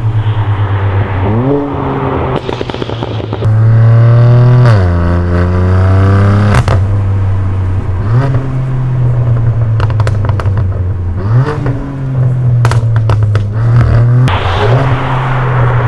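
BMW F80 M3's twin-turbo straight-six through a QuickSilver active-valve exhaust with the valves open, revving hard, its pitch dropping and climbing again several times at gear changes. A run of sharp pops and crackles comes in the second half.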